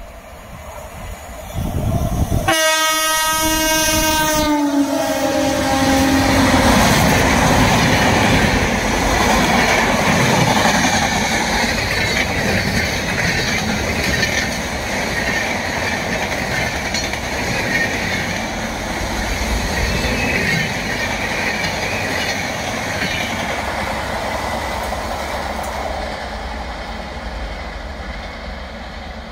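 A train's horn sounds about two and a half seconds in, its pitch dropping as the locomotive goes by. Then comes the steady rush and rumble of a long rake of passenger coaches running past on the rails, fading near the end.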